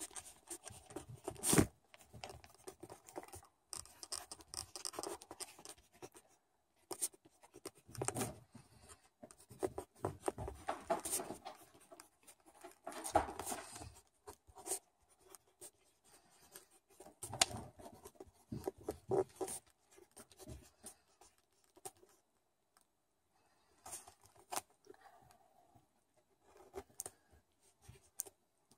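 Handwriting on paper: scratchy pen strokes that come in short spells with pauses between them, plus a few sharp clicks and taps.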